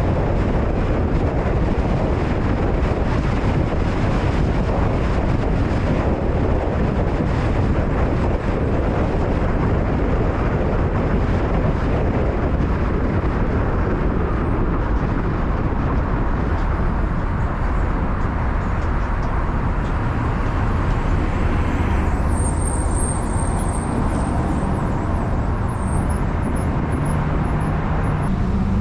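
Steady road noise of a car driving in city traffic: tyre rumble and wind, with no break. The upper hiss eases a little about two-thirds of the way through.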